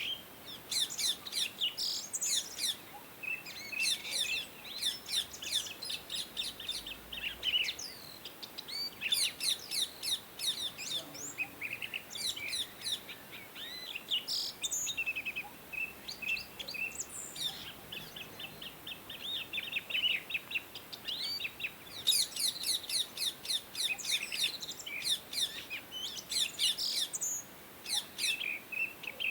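Indian ringneck parrots chirping: repeated bursts of quick, high-pitched chirps, some run together in fast trains, with short pauses between bursts.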